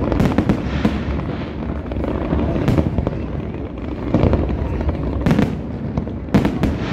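Fireworks finale: a barrage of aerial shell bursts, many sharp bangs in quick clusters over a continuous rumble.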